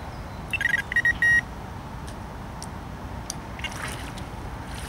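A carp bite alarm giving a short run of electronic beeps about half a second to a second and a half in, the first ones stuttering and the last a steady tone, over a steady low rumble of wind and distant machinery.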